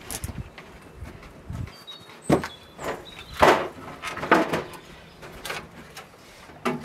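Knocks and clatter of firewood against the sheet-metal firebox and door of a small wood-burning stove as the fire is tended, in irregular bangs with the loudest near the middle.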